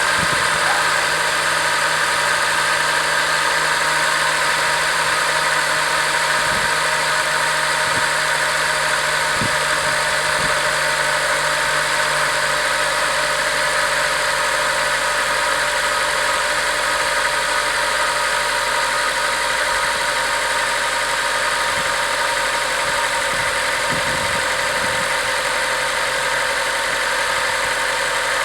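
Acura RSX Type S 2.0-litre four-cylinder engine idling steadily while still cold. At this temperature the owner says it runs quiet, without the ticking it develops once warm.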